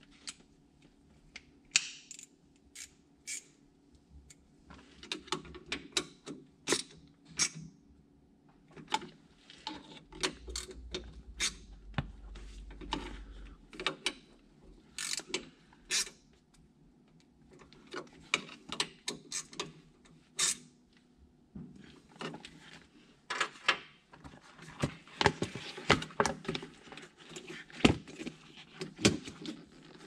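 Plastic and rubber parts of a skid steer's joystick being handled and fitted by hand: a string of irregular clicks, taps and light rattles, thickest near the end.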